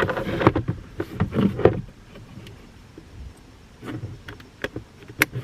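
Hands working plastic dashboard trim and a wiring connector: scattered taps and clicks, with a sharp click or snap near the end.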